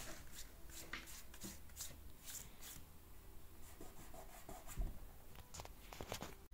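Faint handling noises of hands on a rubber sheet and tabletop: light rubbing and scattered small clicks, with a dull knock a little before five seconds in and a few sharper clicks near the end.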